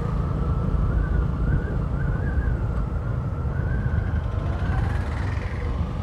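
A motorcycle riding along the road with its engine running, under a steady low wind rumble on the bike-mounted microphone.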